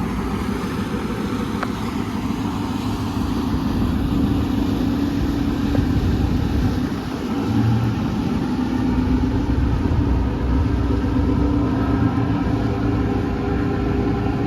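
Tugboat's diesel engine running steadily under load, a low, even drone that grows a little louder about four seconds in.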